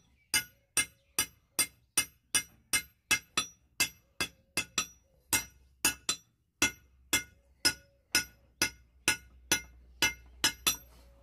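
Hand hammer striking red-hot steel on an anvil in a steady rhythm of about three blows a second, each blow a sharp metallic clink with a short bright ring. There is a brief pause about six seconds in, and the blows come quicker near the end.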